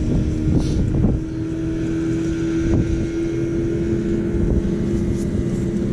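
An engine running at a steady pitch, with wind rumbling on the microphone.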